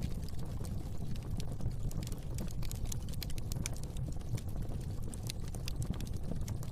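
Wood fire burning in a fireplace: a steady low rumble of flames with many quick, irregular crackles and pops.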